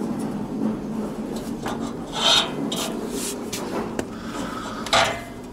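Rustling and rubbing handling noise, with louder scraping swishes about two, three and five seconds in.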